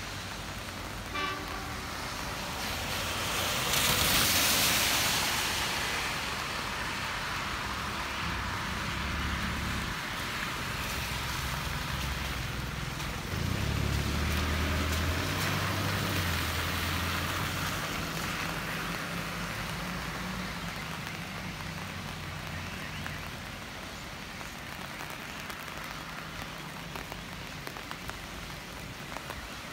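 Road traffic on a wet road in the rain: tyre hiss swells and fades around four seconds in, then a low engine rumble runs through the middle. A brief high tone sounds about a second in.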